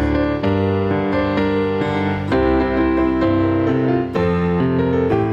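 Piano-sounding keyboard playing an instrumental passage with no voice, notes and chords changing about twice a second.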